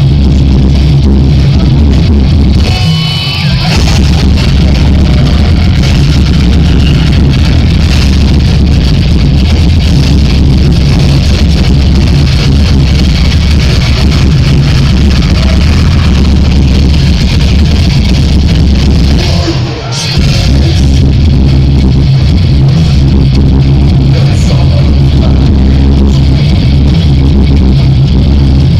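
Live heavy metal band playing loud, distorted guitars and drums, recorded from the crowd with poor, bass-heavy, overloaded sound. The music drops back briefly twice, about three seconds and twenty seconds in.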